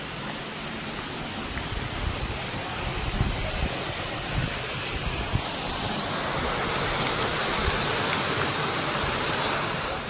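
Steady rush of running water from the desert stream, growing louder about halfway through, with low irregular thumps and rumble underneath.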